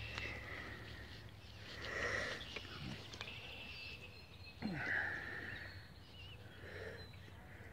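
Handling noise: hands rubbing and bumping the phone's microphone, in a few short rustling swells, the loudest starting with a thump about five seconds in.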